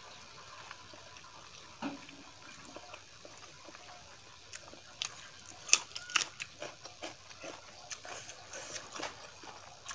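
A hand mixing basmati rice with dal palak on a steel plate: soft wet squishing, joined about halfway through by a run of sharp wet clicks and smacks, the loudest a little before six seconds in.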